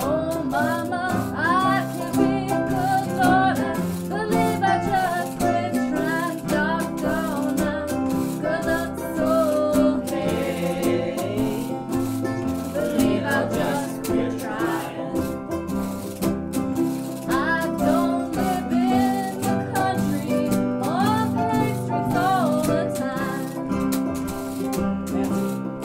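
A band playing a tune, with a steady strummed rhythm and a melody line whose notes bend and slide in pitch.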